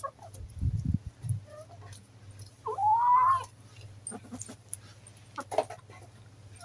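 A few low thuds near the start, then one drawn-out call from an animal about three seconds in, rising and then held, with faint clucks and scuffs around it.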